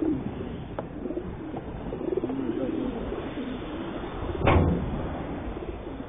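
Racing pigeons cooing in a transport crate, with one brief louder noise about four and a half seconds in.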